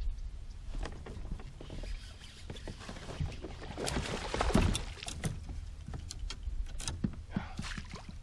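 A fish splashing and thrashing at the water's surface as it strikes a swimbait, loudest and busiest about four to five seconds in, with scattered smaller splashes and knocks around it.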